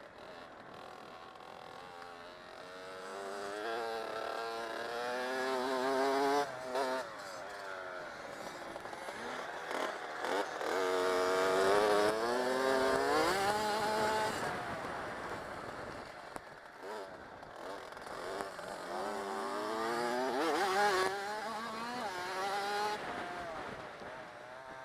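Dirt bike engine being ridden hard, revving up with rising pitch and dropping off again several times as the throttle is opened and closed.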